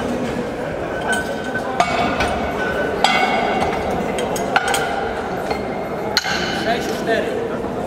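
Steel weight plates being loaded onto a bench-press barbell: several sharp metallic clanks, each ringing briefly, over a background murmur of voices.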